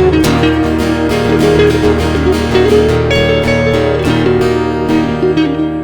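Acoustic guitar playing the instrumental closing bars of a blues song, strummed chords and picked notes without singing.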